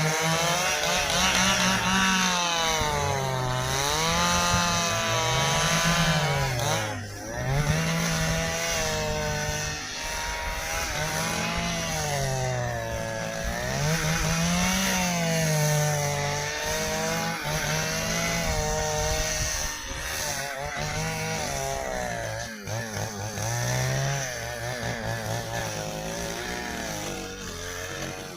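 Stihl chainsaw cutting through dry, very hard ipê wood. The engine pitch repeatedly drops and climbs back about every two seconds as the saw bogs under load and recovers. The saw is straining: its chain is old and dull and has lost a tooth.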